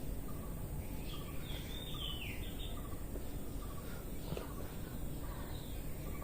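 Birds chirping in short pitch-gliding calls over a steady low background hum.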